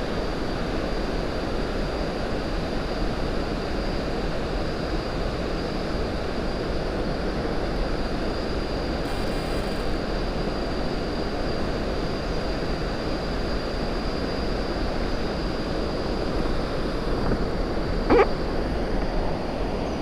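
Waterfall's falling water rushing in a steady, even roar that does not change.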